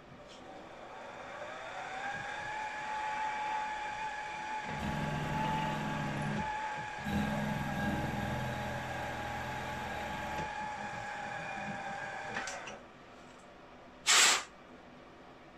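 Small milling machine's spindle motor spinning up to a steady whine, with a countersink cutter cutting into a brass whistle body, rougher in the middle as it bites; the motor stops sharply. A short, loud burst of noise follows near the end as the part is handled.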